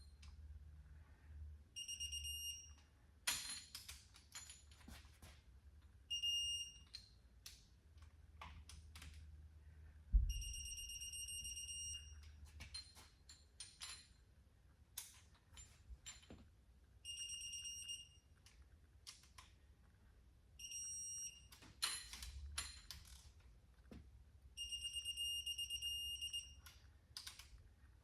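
Electronic torque wrench beeping as each cylinder head bolt is re-checked and reaches its set torque of 70. There are six high, steady beeps of one to two seconds each, with sharp clicks and knocks in between.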